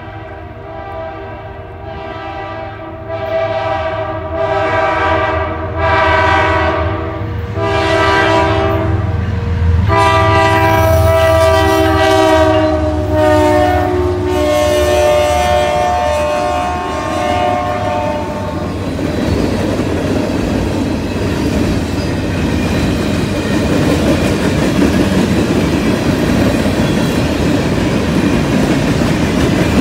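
Diesel freight locomotive's horn sounding several blasts, the last one long, its chord dropping in pitch as the lead locomotive passes. After that, the rumble and clickety-clack of freight cars rolling by over the rails.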